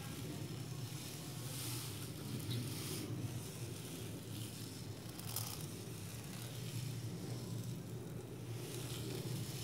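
Quiet room noise: a steady low hum and hiss with a few faint rustles.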